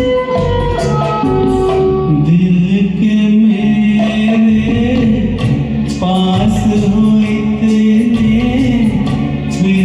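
Karaoke performance of a Hindi film song: a man singing long held notes over a recorded orchestral backing track.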